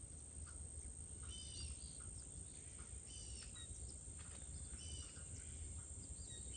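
Birds chirping, short calls repeating every second or two, over a low steady outdoor rumble, with a thin steady high-pitched buzz.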